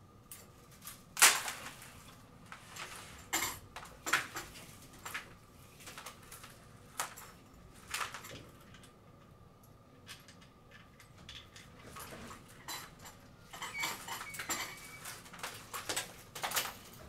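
Irregular clicks, clinks and rustles of hands handling a billiard light's socket wires and small hardware, with the sharpest knock about a second in and a busier run of clicks near the end.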